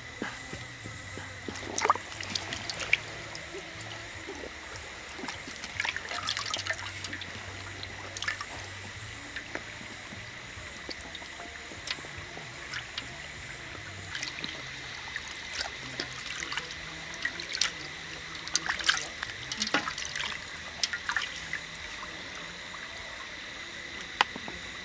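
Water trickling and dripping off a wet plucked duck carcass as it is rinsed and turned by hand over a pot, with scattered short wet slaps and clicks of handling. A steady high whine runs underneath.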